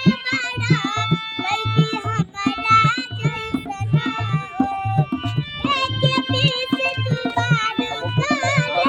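A young girl singing with ornamented, wavering notes, accompanied by tabla strokes in a steady rhythm.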